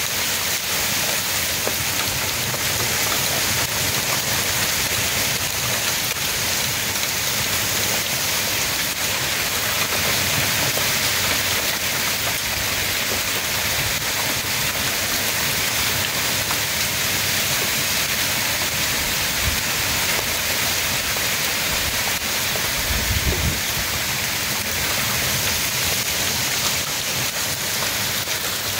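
Heavy wind-driven rain pouring in a severe windstorm: a loud, steady, dense hiss of rain on the ground, roof and foliage.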